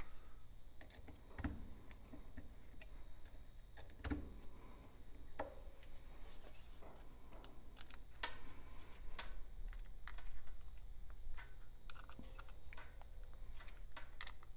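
Faint, irregular clicks and small knocks of a Leatherman Surge multi-tool's screwdriver bit working the screws of a plastic extension-cord plug housing, with the metal tool and plug handled on a steel bench; a few sharper knocks stand out.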